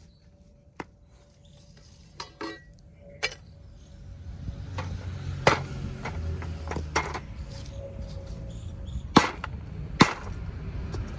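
Baked clay kulhad cups being broken, a series of sharp irregular cracks and snaps, with a low rumble rising underneath about four seconds in.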